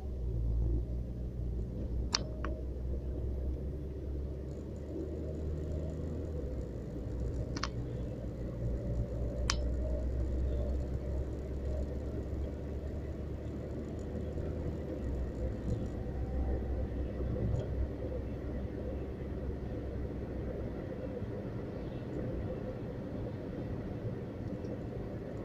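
Steady low rumble of a car's engine and tyres while driving on a paved road, heard from inside the cabin. Three short, sharp clicks come in the first ten seconds or so.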